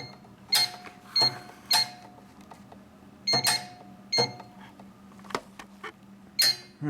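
Control-panel buttons of a Pelton & Crane Validator 8 autoclave being pressed, each press a sharp click with a short electronic beep, about eight in irregular groups, over a steady low electrical hum from the powered unit.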